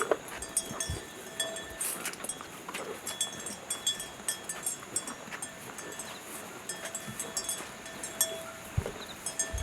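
Small monsoon stream flowing, a steady rush of water. Short clicks and brief ringing clinks at a few recurring pitches are scattered irregularly through it.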